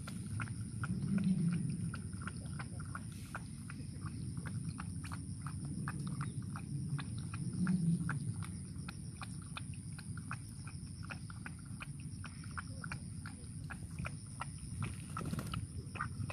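A Shiba Inu lapping water from a bowl: a long, steady run of quick wet laps, about three to four a second, which stops shortly before the end. A low rumble runs underneath.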